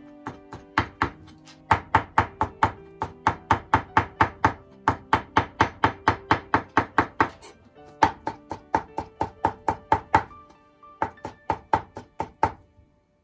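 Kitchen knife chopping strips of thin egg crepe (kinshi tamago) on a wooden cutting board: quick, regular strokes about four a second, with two short pauses, over background music.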